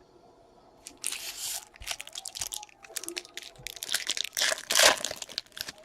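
Trading card packaging being torn open and crinkled, starting about a second in as a run of sharp crackles, loudest near the end.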